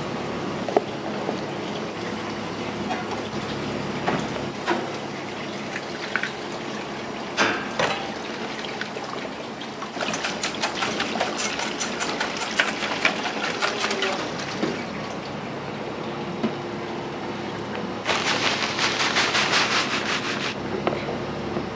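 Commercial kitchen at work: a steady background hum with a few clatters of utensils, then two spells of running, splashing water, one about ten seconds in lasting some four seconds and a shorter one near the end.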